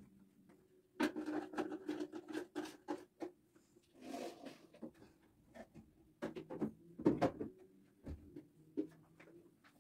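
Kitchen clatter: light clinks, taps and knocks of dishes and utensils being handled at a counter, with a loud knock about seven seconds in, over a faint steady hum.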